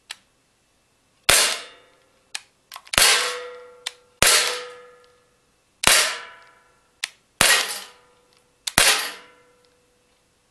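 Beretta Px4 Storm CO2 blowback air pistol firing about six shots a second or so apart. Each loud crack is followed by a ringing metallic tail as pellets strike the steel pellet trap and its knock-down targets, with lighter clicks in between.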